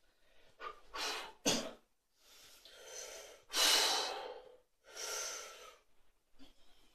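A man taking about five forceful, hissing breaths in and out, bracing before a heavy barbell deadlift. The longest and loudest breath comes about halfway through.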